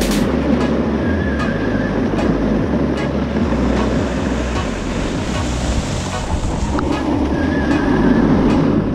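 Wind buffeting the microphone and the steady rush of a snowboard sliding and carving over groomed snow on a downhill run.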